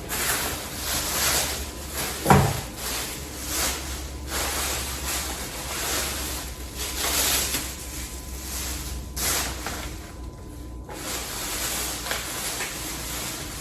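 Groceries and their packaging being handled and rustled, with a sharp knock about two seconds in.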